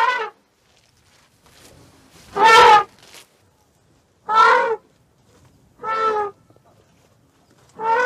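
Elephants trumpeting: five short trumpet calls, one to two seconds apart, the second the loudest.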